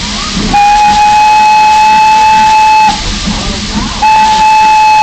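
Steam locomotive whistle sounding two long, steady single-pitch blasts, the second beginning about four seconds in. Two long blasts is the railroad signal to release brakes and proceed, given as a train starts off.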